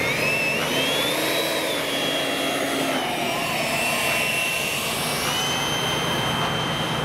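Radio-controlled F-15 model jet's engines whining as it taxis: the pitch rises over the first second or so as they throttle up, dips a little, then holds a steady high whine.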